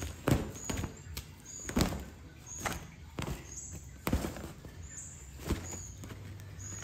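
A cat thrashing inside a fabric pop-up play tunnel: a run of irregular thumps and rustles as she swats and rolls against the tunnel walls.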